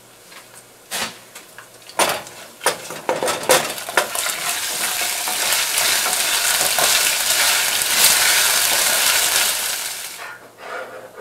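Ginger garlic paste, chillies and spices frying in hot oil in a saucepan while being stirred with a wooden spatula. A few knocks and scrapes of the spatula come first, then a steady sizzle builds from about two seconds in and stops short near the end.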